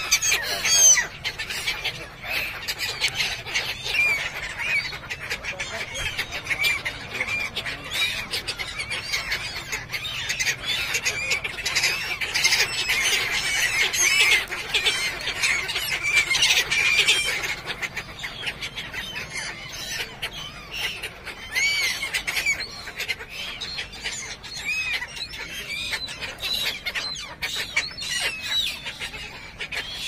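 A large flock of gulls calling: many short, harsh cries overlapping continuously, busiest around the middle.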